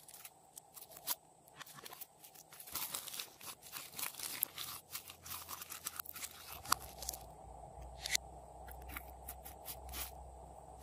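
Glossy slime being squeezed in the fingers and peeled off a plastic toy, making sticky crackles and clicks. The clicks come thick and fast in the middle, then thin out to scattered single clicks.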